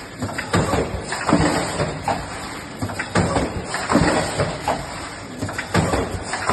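Packaging-line machinery running, with a regular clatter about once a second over a steady mechanical din.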